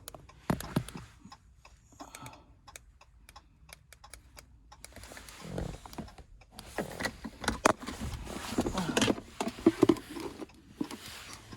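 Handling noises inside a car: scattered light clicks, then rustling and knocks that grow busier about halfway through, as a key fob is placed around the centre console.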